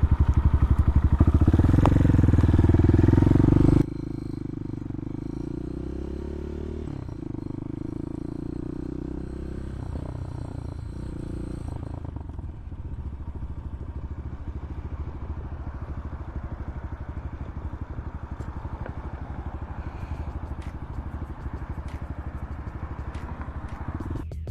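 Bashan 250 dirt bike engine running as the bike moves off and rides, its pitch rising and falling with the throttle. Loud at first, the sound drops suddenly about four seconds in and runs on at a lower, steadier level.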